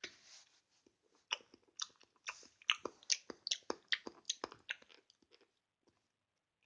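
Close-up wet mouth sounds of chewing a soft, chewy food: a quick run of sharp smacks and clicks that thins out and stops about a second before the end.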